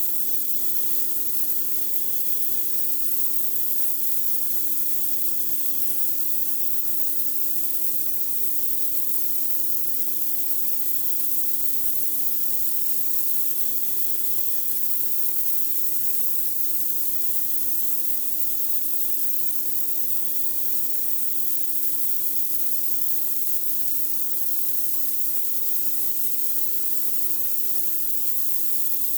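High-pressure water from a pressure washer spraying steadily onto a concrete driveway as a constant hiss, with a steady machine hum from the washer underneath.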